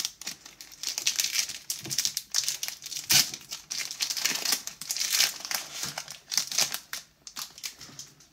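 Foil Pokémon booster pack wrapper being torn open and crinkled by hand: a dense run of irregular crackles, loudest about three seconds in, thinning out near the end as the cards are drawn out.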